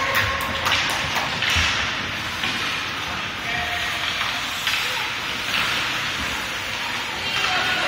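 Youth ice hockey play: skates scraping the ice again and again, with a few sharp stick-and-puck clacks near the start and players' voices calling out.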